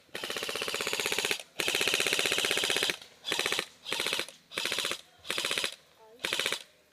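Airsoft gun firing full-auto in rapid clicking bursts: two long bursts of over a second each, then a string of short bursts.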